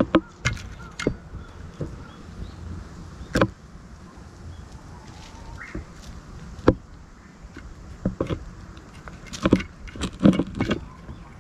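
Cat eating wet food from a metal plate close up: irregular clicks and knocks of its mouth against the dish, with a clatter as the plate is set down on the ground at the start. A cluster of quick clicks comes near the end.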